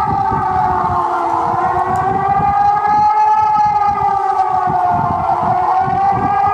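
A siren wailing, its pitch slowly falling and rising again about every four seconds, with a rough low rumble underneath.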